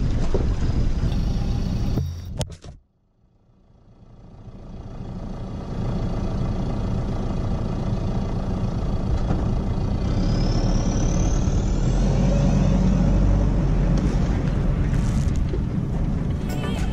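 Vehicle driving, with steady engine and road noise. The sound cuts out about two seconds in and fades back up over the next few seconds, and a short rising whine comes near the middle.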